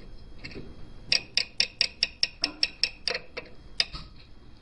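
Quick run of about a dozen sharp metallic clicks, about four a second, from a hand tool working against a metal scooter engine part.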